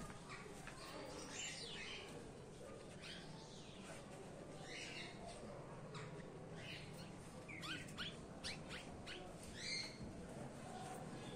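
European goldfinch singing: scattered short, high twittering notes and quick trills, coming thickest a little after the middle.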